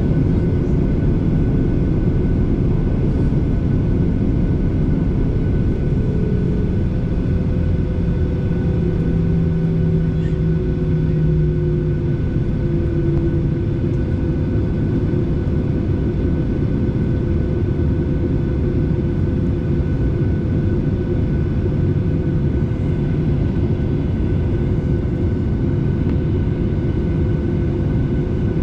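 Passenger airliner's engines and airflow heard from inside the cabin: a loud, steady rumble with a steady whine over it. Between about 6 and 13 seconds a lower engine tone slides slightly down in pitch.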